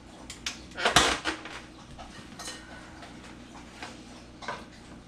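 A stand mixer's stainless bowl and head clanking and clicking into place as it is handled. The loudest clank comes about a second in, followed by a few lighter knocks.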